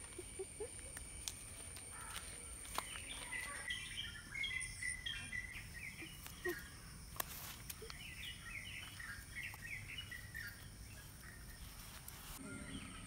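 Birds chirping in quick runs of short, high twittering notes, busiest through the middle, over a steady high insect-like whine, with a few soft clicks from handling.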